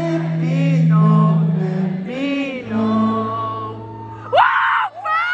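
Live concert music heard from within the audience: a man singing slow, drawn-out lines over held electric guitar chords, with one chord change about halfway through. About four seconds in, the crowd breaks into loud cheering and whoops.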